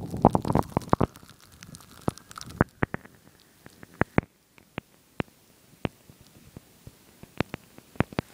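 Footsteps crunching through deep powder snow for about the first second, then scattered single sharp crunches and clicks with quiet between them.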